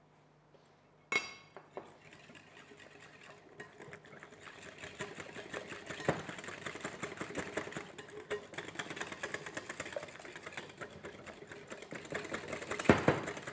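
Eggs and stevia being beaten in a mixing bowl: a fast run of clicks from the beater against the bowl that grows louder, after a single knock about a second in.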